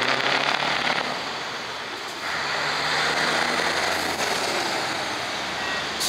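Scania 143 V8 truck engine running as the truck drives along the road, growing louder about two seconds in.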